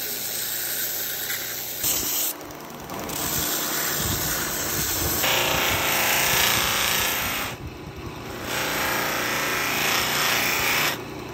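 A belt grinder grinding a steel hammer head, then a spinning abrasive wheel polishing it. The grinding hiss changes about two seconds in, grows louder from about five seconds, and drops briefly near eight seconds as the work is eased off the wheel.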